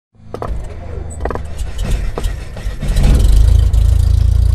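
Logo-intro sound effects: a few sharp hits over a low rumble, which swells into a loud, deep, sustained rumble about three seconds in.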